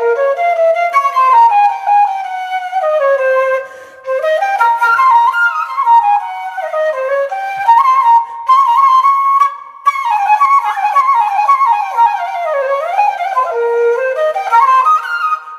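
A flute playing a single melodic line with quick ornamented runs and sliding notes. It breaks off briefly twice.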